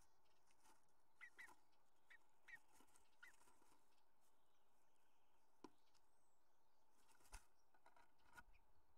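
Near silence: a faint steady hiss, with a few faint short bird chirps between about one and three and a half seconds in, and a couple of faint clicks later.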